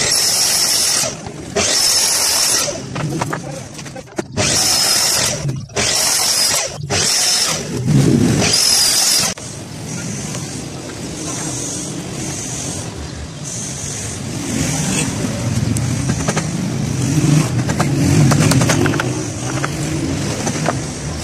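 Electric sliding compound miter saw cutting laminated particleboard in about six short bursts, each about a second long, over the first nine seconds; the blade's pitch sags under load in the last cut. After that comes a quieter, steady background noise.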